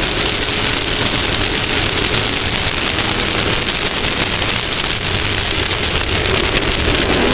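Off-road race vehicle's engine running, a steady drone under a loud, even rushing hiss. Near the end the engine settles into a steadier low note.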